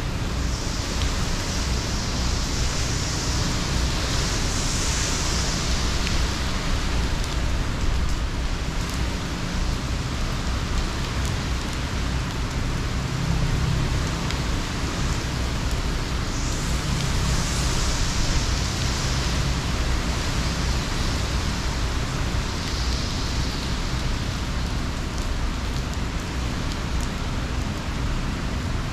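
Hurricane Ian's heavy rain and gusting wind: a steady rush of rain that swells several times as the gusts strengthen, over a low rumble.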